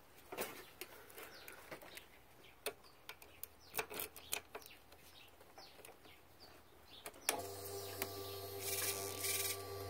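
Kawasaki ZX-10R's ignition switched on about seven seconds in: a click, then a steady electric hum of the fuel pump priming for about three seconds, with a short hiss partway through; the engine is not started. Before it, faint chirping and small handling clicks.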